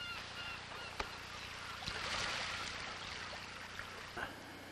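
Faint steady wash of water along a rocky shore, with one sharp knock about a second in and a brief swell of hissing around two seconds in.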